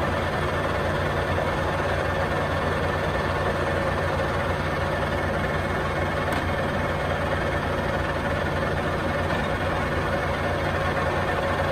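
A 15 x 50 Clausing Colchester engine lathe running under power with its chuck spinning, giving a steady mechanical hum and a faint steady whine; the carriage's power cross feed is engaged.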